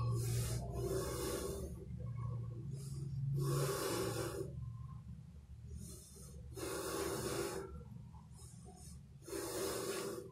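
Tabby cat hissing at a rat, about five sharp hisses a few seconds apart, with a low rumble under the first few seconds.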